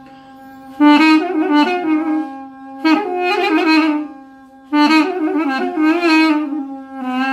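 Armenian duduk playing a slow, ornamented melody with vibrato in three phrases, each entering about one, three and five seconds in. A steady drone note is held underneath throughout.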